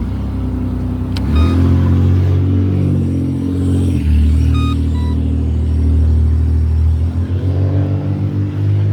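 Motor vehicle engine running close by, a steady low hum that rises and falls in pitch as it revs and pulls away. A couple of faint short beeps from the crosswalk push-button signal sound over it, about a second and a half in and near the middle.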